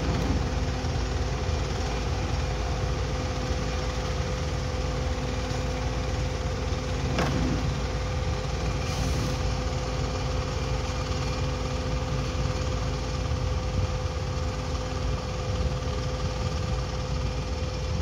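Heavy diesel engine of a wind turbine blade transport vehicle running steadily: a low rumble with a constant hum above it. A single sharp click comes about seven seconds in.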